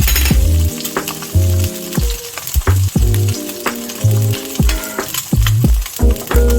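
An egg sizzling as it fries in a pan, under background music with a steady beat.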